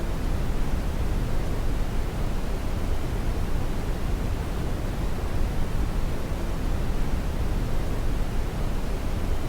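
Steady, unbroken synthetic noise of a baby-sleep "white noise" track, an even hush weighted toward the deep end rather than a bright hiss, with no change in level.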